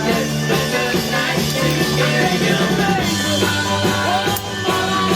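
Rock music with guitar, drums and singing, which stops suddenly at the very end.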